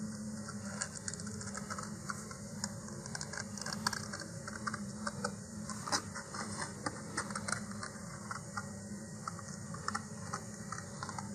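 Scissors snipping through a sheet of thin glossy cardboard, cutting along a printed line: a long irregular run of short snips and clicks, over a low steady hum.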